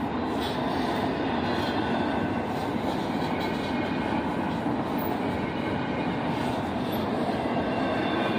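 Double-stack intermodal freight train rolling past close by: a steady, unbroken rumble of the cars on the rails.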